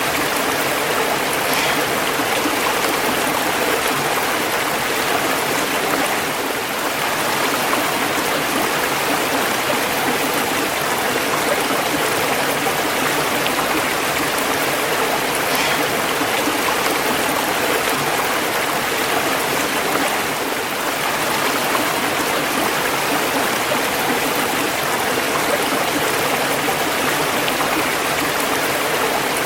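Running water: a stream or small waterfall flowing steadily, a continuous even rushing with a bright splashing hiss.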